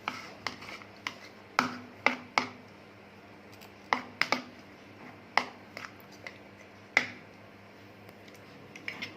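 A spoon clinking against a bowl while mixing the corn paneer salad: a dozen or so sharp, irregular taps, some ringing briefly.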